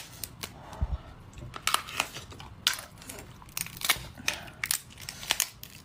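Crunchy seafood being cracked, bitten and torn apart, a quick irregular run of sharp cracks and crunches with chewing in between.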